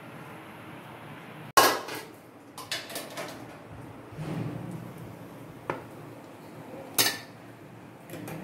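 Metal cookware clanking: the tandoor's metal lid and the pizza pan knocking against each other and the wire rack, with a loud clank about a second and a half in, a few lighter clinks, and another sharp clank near the end.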